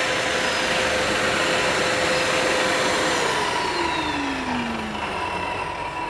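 Automatic wet-and-dry shop vacuum running with a steady rushing whine. About halfway through, a motor's whine starts to fall in pitch as it winds down, and the sound slowly gets quieter.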